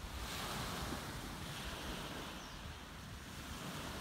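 Sea waves washing, with wind rumbling on the microphone.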